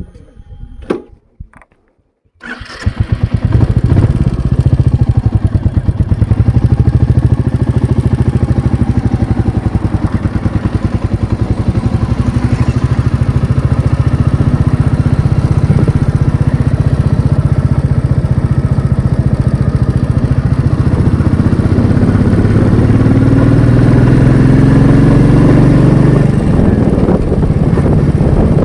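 Motorcycle engine that sets in abruptly after a couple of seconds of quiet, then runs loud and steady with fast, even exhaust pulses. Its pitch rises slightly near the end.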